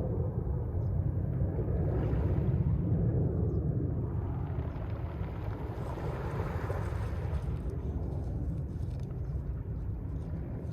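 Mediterranean sea waves breaking and washing ashore, swelling twice: about two seconds in, and again around six to seven seconds. Under them runs a steady low rumble of wind on the microphone.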